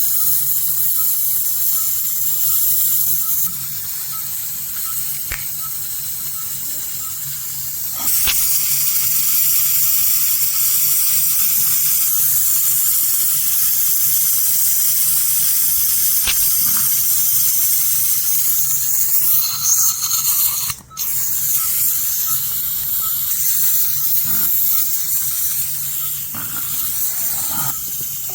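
Ultrasonic dental scaler running with its water spray, a steady high hiss during teeth scaling. It turns quieter a few seconds in and louder again about eight seconds in, with a few sharp clicks.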